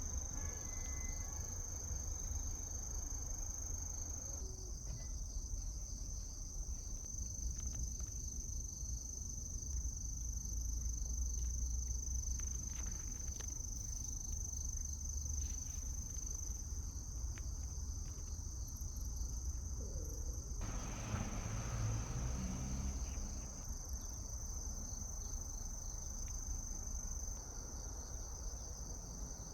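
Autumn crickets trilling in one steady, unbroken high tone, over a low rumble. About two-thirds of the way through, a short, fuller sound with some low tones rises briefly above the rumble.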